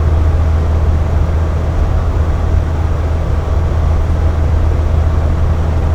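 Air conditioner running steadily: a constant low hum with a whooshing noise of air over it and a faint steady whine higher up.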